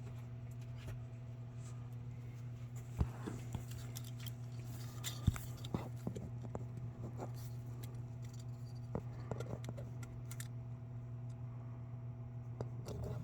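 Scattered light clicks and taps of a scale-model trailer's small parts being handled and worked at the hitch, over a steady low hum.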